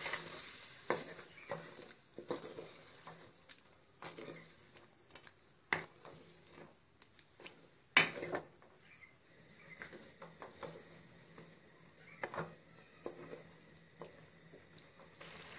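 A cooking utensil knocking and scraping in a pot of chicken masala as it is stirred: irregular clinks, with one louder knock about eight seconds in, over a faint steady hum.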